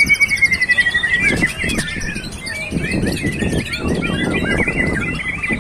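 Several songbirds singing over one another, white-rumped shamas among them: a long wavering whistle with a fast high rattle above it in the first second, then a dense jumble of quick chirps and whistles. A low background rumble comes in about halfway through.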